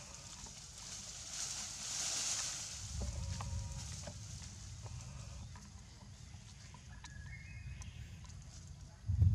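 Leaves and branches rustling as a young macaque climbs through a tree canopy, with a few short chirping animal calls. A low rumble comes in about three seconds in and swells sharply near the end.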